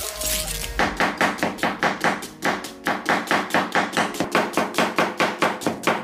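Kitchen knife slicing an onion thinly on a plastic cutting board: quick, even strokes, about five a second, starting a little under a second in.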